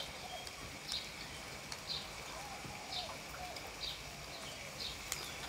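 A small bird chirping over and over, a short high chirp about once a second, with a few light clicks like utensils on dishes.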